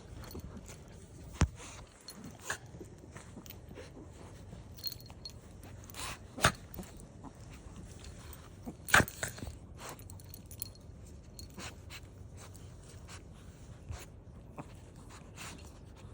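Two small dogs tussling and mouthing each other on a couch: rustling and scattered soft clicks, with three sharp knocks, the loudest about nine seconds in.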